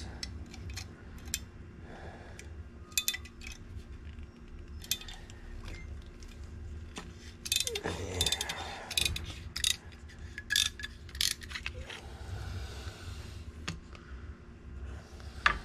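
Scattered clicks and knocks of a scooter's front brake caliper being handled and turned over, metal parts tapping against each other, with a brief scrape about halfway through and a few louder clacks after it. A steady low hum runs underneath.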